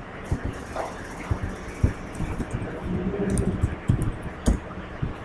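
Computer keyboard and mouse clicks, irregular and scattered, over a steady background hum of the room and recording.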